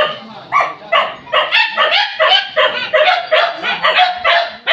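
Hunting dogs barking in a rapid, steady run of about three barks a second.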